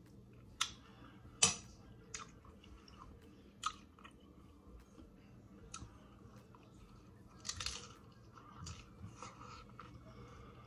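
Close-miked biting and chewing of a crispy hard-shell corn taco: a string of sharp, crisp crunches, the loudest about a second and a half in and a quick cluster of crunches near eight seconds, with softer wet chewing between.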